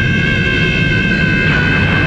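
Animated fight-scene soundtrack: a sustained high whine that drifts slowly down in pitch, over a steady low rumble.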